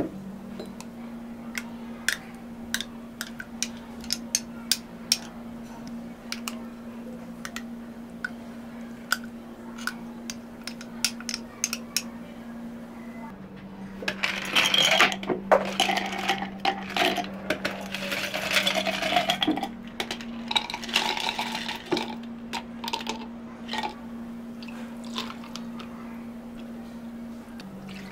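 Drink preparation at a cafe counter: many light, separate clinks and taps of cups, utensils and containers, with a louder rushing stretch about halfway through whose tone rises, over a steady low hum.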